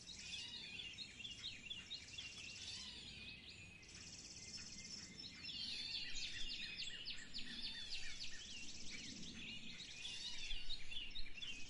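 Songbirds chirping and twittering continuously in quick, overlapping high chirps, with short buzzy trills mixed in. The song grows a little louder toward the end.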